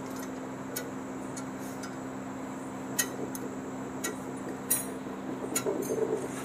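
Scattered light metal clicks and clinks, a handful over several seconds, as the small oil cooling jets and their banjo bolts are handled and fitted into the engine block, over a steady low hum.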